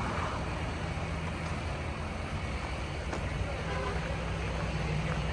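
Heavy truck's diesel engine idling: a steady low rumble.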